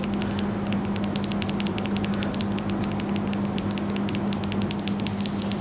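Tactile push-button switch clicking rapidly as it is pressed over and over, working cleaning spray through its carbon-fouled contacts. A steady low hum runs underneath.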